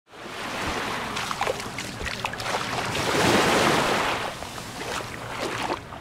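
Small Mediterranean sea waves washing onto a pebbly sand shore, one wave swelling to its loudest a little past the middle.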